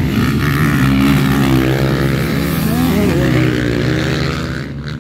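Several motocross dirt bikes accelerating past at close range, their engines revving hard, the pitch rising and falling as they shift. The sound eases off a little near the end as they pull away.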